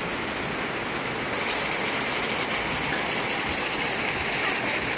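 Beef liver stew with potatoes and carrots simmering in a pan on an induction cooktop, its thick sauce bubbling with a steady, fine crackle.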